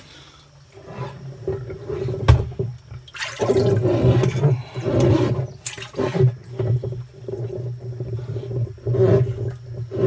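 Water sloshing and splashing inside a plastic pig-watering barrel as a hand and arm work down in it at the broken bulkhead fitting of the nipple drinker. A single sharp knock comes a little over two seconds in, and the churning grows heavier from about three seconds on, with pigs grunting around it.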